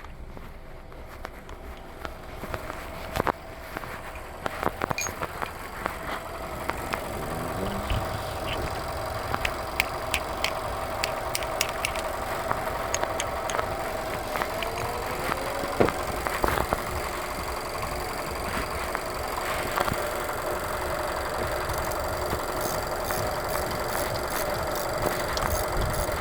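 A car engine idling steadily, which grows louder about seven seconds in, with scattered light clicks over it. This is the Nissan Sentra's four-cylinder kept running during the battery change.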